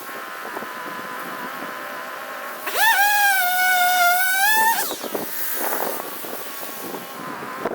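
Chainsaw idling, then opened up to full throttle about three seconds in for roughly two seconds, its pitch dipping a little and rising again before it drops back to idle.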